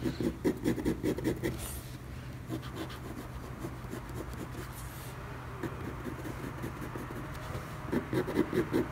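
A red coloured pencil hatching quick straight strokes on paper, several scratchy strokes a second. The strokes are loudest at the start and again near the end, softer in between, while the lead is wearing round.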